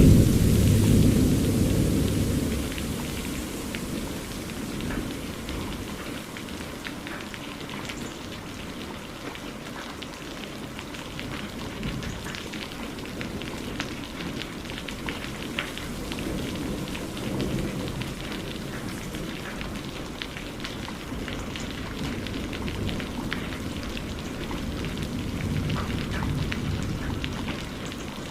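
Steady rain falling and pattering on a surface, with a thunder roll right at the start that fades over a few seconds. Fainter low rumbles of thunder swell twice later on.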